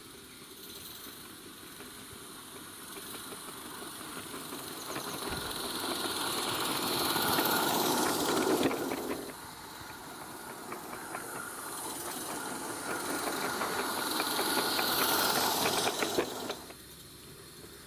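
Small live-steam garden-railway locomotive hauling coaches: steam hiss and rapid exhaust beats grow louder as the train approaches and passes close, twice, each time dropping off suddenly, about nine seconds in and near the end.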